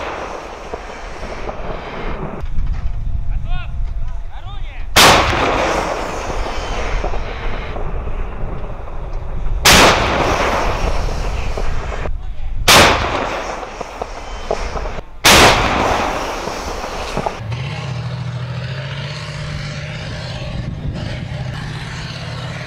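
2S1 Gvozdika 122 mm self-propelled howitzers firing four shots a few seconds apart, each a sharp blast with a long rumbling echo. After the last shot, a tracked vehicle's engine runs steadily as it moves off.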